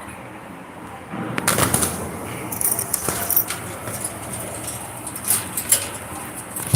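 Pet parrot moving about, with a brief flurry of wing flapping about a second in, then scattered short scratchy sounds.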